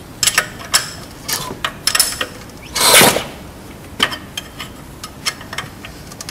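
Scattered metallic clicks and clinks of hand tools working on a diesel engine, with a short whoosh about three seconds in.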